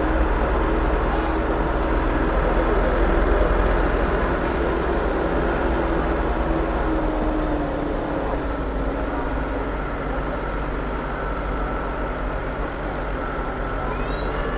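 A bus engine running, a steady deep drone whose pitch sinks slightly over the seconds, with voices of a crowd.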